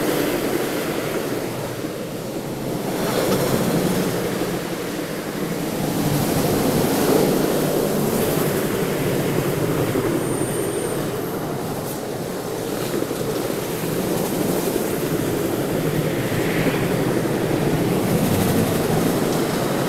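BNSF freight train of tank cars rolling past on the tracks below, a steady rumble of steel wheels on rail.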